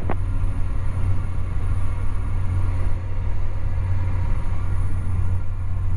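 Cessna 208B Grand Caravan's single turboprop engine and propeller heard from inside the cockpit in flight: a steady low drone that does not change.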